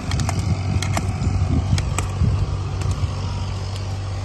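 A knife striking a steel plate as carrots are diced, a few sharp irregular clicks, over a steady low motor hum.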